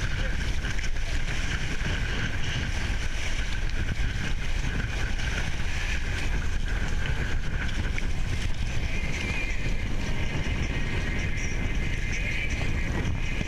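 Wind buffeting the microphone over the steady wash and splash of water along the hull of a ngalawa outrigger sailing canoe under way.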